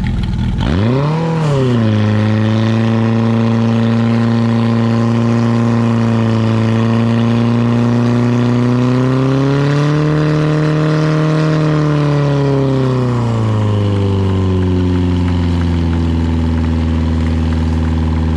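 Portable fire pump's engine revving up sharply about a second in, then running hard at high speed as it pumps water into the hoses. The revs climb again around ten seconds in and drop back a few seconds later to a lower steady speed.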